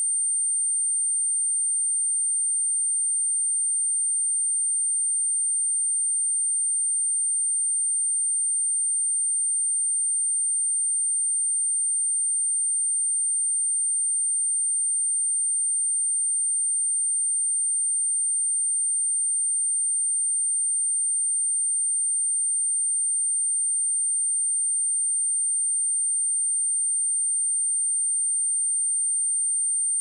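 A pure 8875 Hz sine-wave test tone, a single steady high-pitched whine held at constant level, played as a speaker cleaning tone meant to shake water and dust out of a speaker.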